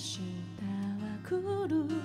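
Live acoustic music: acoustic guitar with a wordless vocal line sung with vibrato.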